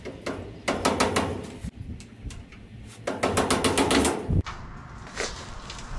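Hammer striking steel on a Model A front axle's spindle and perch-pin end, in groups of quick sharp blows: several about a second in, a faster run about three seconds in, and one more near the end, driving the pins loose.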